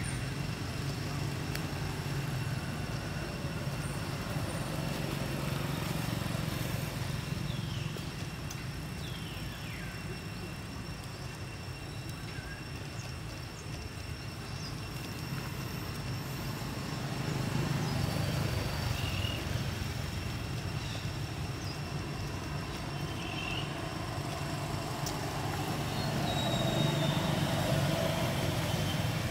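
Steady low outdoor rumble with a few faint, short high chirps over it.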